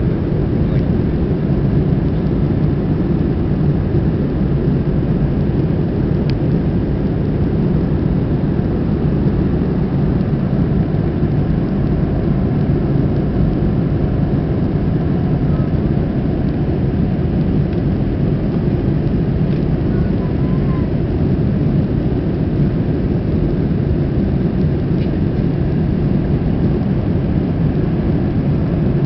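Steady rumble of an Airbus A321's jet engines and rushing air heard from inside the passenger cabin, loud and even throughout with no change in pitch.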